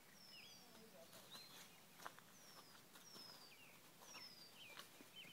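Faint birdsong: wild birds repeating short falling whistled notes and quick hooked chirps, with a couple of soft knocks.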